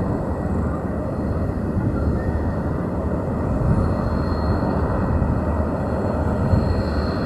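Lockheed Martin C-130J-30 Hercules's four turboprop engines running, a steady loud rumble. A thin high whine comes up a few seconds in and again near the end.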